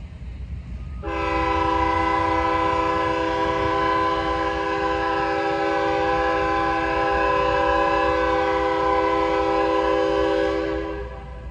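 Union Pacific freight locomotive's air horn sounding one long blast of several notes at once, a steady chord that starts about a second in and cuts off near the end, over a low rumble.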